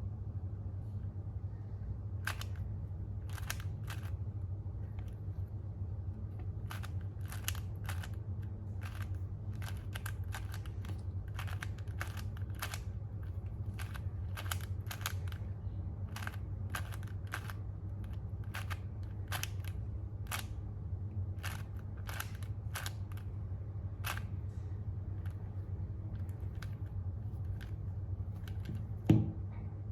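A 4x4 Rubik's cube being turned through the OLL parity algorithm: dozens of sharp plastic clicks from the layer turns at irregular spacing, some in quick runs, over a steady low hum.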